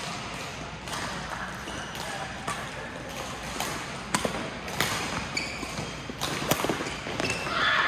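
Badminton rackets striking shuttlecocks in a large echoing sports hall: scattered sharp clicks, several louder hits in the second half, with short sneaker squeaks on the court floor and voices in the background.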